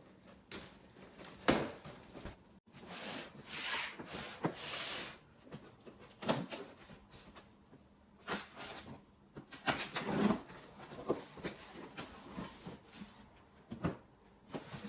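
A cardboard shipping box being opened and its packaging handled: irregular knocks and clicks mixed with short scraping, rustling swishes.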